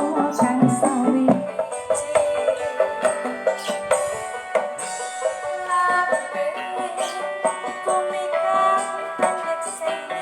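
Music with quick percussion and a melody playing through a miniature sound system; the bass part drops out about a second and a half in.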